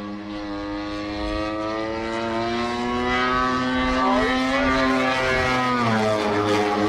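Giant-scale RC airplane's engine and propeller running at high power, one steady note whose pitch climbs slowly over several seconds and then drops near the end.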